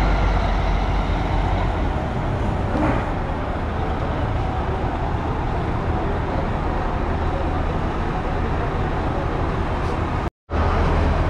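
A bus running: a steady, deep engine rumble mixed with road noise.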